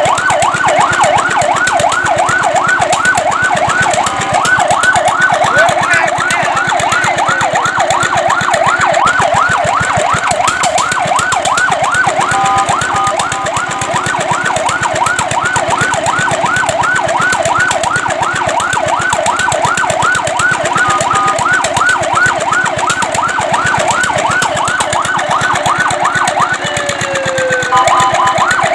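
Fire truck siren on a fast yelp, sweeping rapidly up and down in pitch about four times a second. Short steady two-note tones overlap it a few times, and a slower falling sweep sounds near the end.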